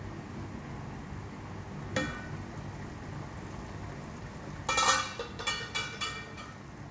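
Stainless steel pot lid and kitchenware clinking: a single ringing clink about two seconds in as the lid comes off the cooking pot, then a quick run of louder metallic clinks and rattles between about five and six seconds.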